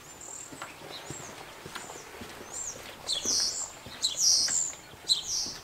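Small birds chirping: a run of short, high chirps, then three louder clusters of quick chirps in the second half.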